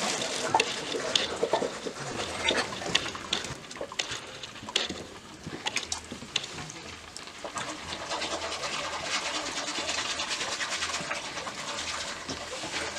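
A plastic bag rustles over a basket of bread with short handling clicks. Then a ladle scoops and pours a drink in a large aluminium pot, with liquid splashing.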